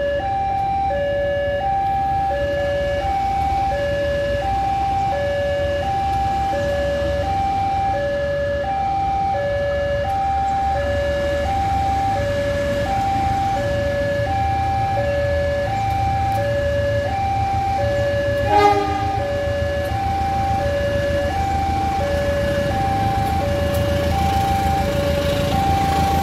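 A two-tone electronic warning alarm sounds steadily, a higher and a lower tone alternating about once a second. Under it, a CC 201 diesel locomotive's engine rumbles as it approaches, growing louder near the end. There is one sharp click about two-thirds of the way in.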